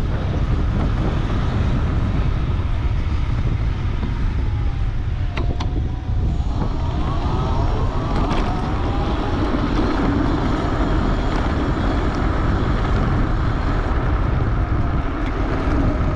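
Wind buffeting the microphone while riding a high-power electric bike: a steady low rumble. A faint whine rises and falls a few times partway through, and there is a single click about five seconds in.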